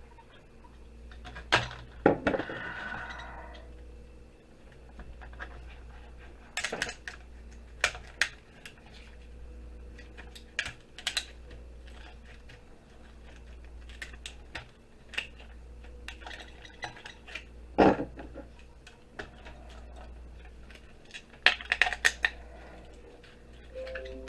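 Metal scrap parts and hand tools clinking and clattering on a workbench as a computer board is stripped, with sharp knocks scattered throughout and the loudest one about eighteen seconds in. A short scraping rasp comes about two seconds in, over a low steady hum.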